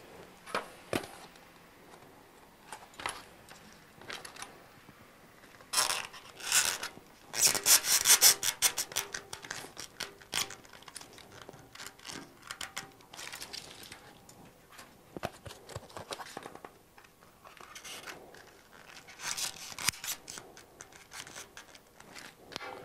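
Foam board squares and plastic clips being handled on a tabletop: clips slid onto the squares' edges and squares shifted about. The result is scratchy rubbing and scraping in irregular bursts, busiest about six to nine seconds in and again near twenty seconds.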